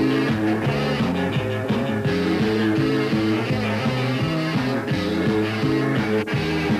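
Live ska band playing an instrumental passage, a bass line moving in short repeated steps over a steady beat.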